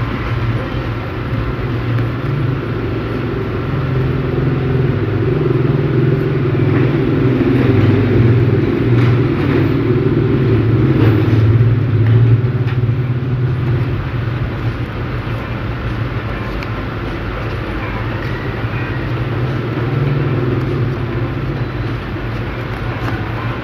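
Steady low rumble of background noise, swelling slightly in the middle, with a few faint crinkles of paper being creased by hand.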